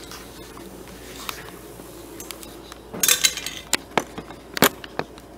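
Handling noise as a camera is moved and set in place: a faint hum at first, then a rustling clatter about three seconds in, followed by several sharp clicks and clinks.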